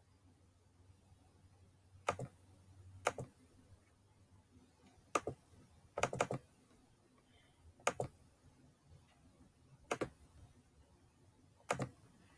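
Computer mouse clicking: about eight sharp single clicks, spaced irregularly one to two seconds apart, over a faint hum.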